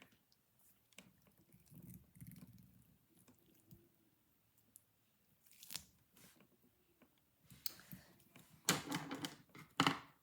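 Crinkling, tearing handling noise from a cut-open squishy being pulled at and squeezed, with scattered small clicks and a few louder crunchy bursts near the end.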